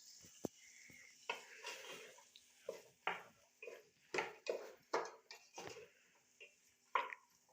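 A spoon stirring sliced onion frying in a pot, scraping the pot in short strokes about twice a second, with a couple of knocks against the pot near the start.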